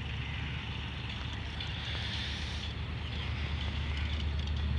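Low, steady drone of an approaching GMCU-15 diesel locomotive, growing slowly louder, with wind noise on the microphone.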